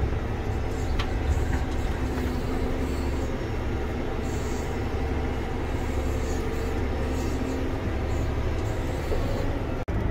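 John Deere 9620R tractor pulling a grain cart, heard from inside its cab: a steady low engine and drivetrain rumble. The sound cuts out for an instant near the end.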